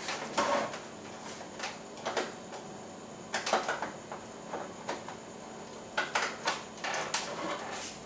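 Hands fumbling behind a flat-screen TV to plug an HDMI cable into its port: a scattering of short clicks, knocks and rustles, the loudest about three and a half and six seconds in.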